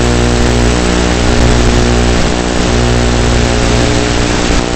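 Electric motor and propeller of a Turbo Timber UMX model plane in flight: a steady, even drone with many fixed tones over a constant hiss, picked up by the onboard FPV camera's microphone.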